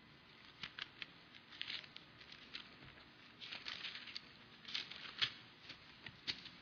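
Thin Bible pages being leafed through: a run of faint, irregular papery rustles and flicks.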